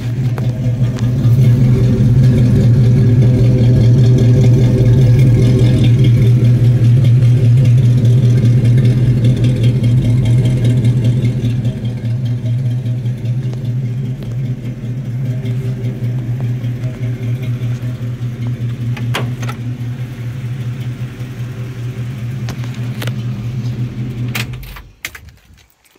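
1967 Chevrolet Camaro engine idling steadily, louder for roughly the first ten seconds, then shut off near the end, its sound stopping abruptly.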